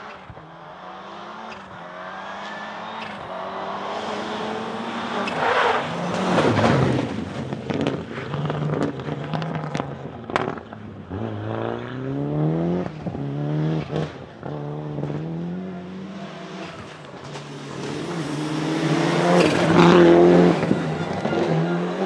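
Toyota Celica GT-Four ST185 Group A rally car's turbocharged four-cylinder engine at full throttle, revs climbing and falling back in steps as it changes gear, with short sharp cracks in between. It is loudest as the car passes about six seconds in and again near the end.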